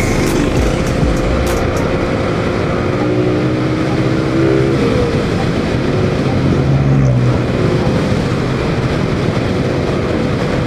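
Motorcycle ride at road speed: steady wind rush over the microphone along with the engine's running drone, whose pitch shifts around the middle.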